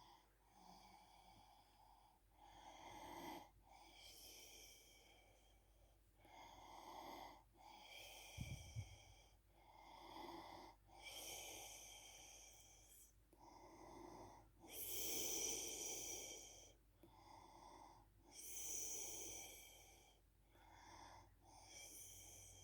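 A sleeping woman snoring faintly. Each low snore is followed by a high, hissing breath, and the pair repeats about every three to four seconds.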